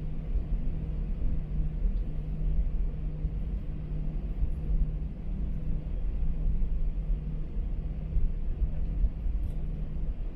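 Steady low rumble inside an Airbus A321 passenger cabin on the ground before takeoff, with a constant low hum from the engines and cabin air system.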